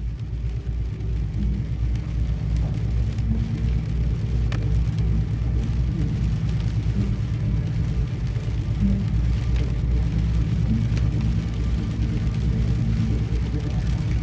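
Car driving: steady low engine and road rumble heard from inside the cabin, with a few faint ticks over it.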